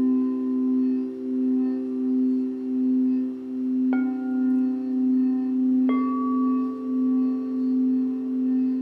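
Singing bowls ringing: one low tone hums steadily with a slow, even wavering, while two more bowls are struck about four and six seconds in, each adding a higher ringing tone that lingers.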